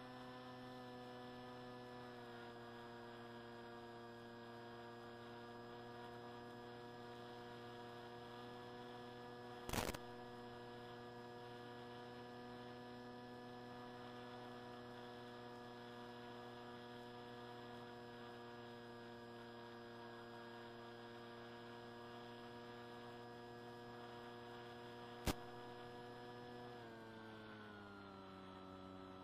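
Electric motor and propeller of a Swift II FPV flying wing, heard through its onboard electret microphone as a faint, steady hum. About 27 seconds in the pitch steps down as the throttle is eased back. Two short clicks, about 10 and 25 seconds in.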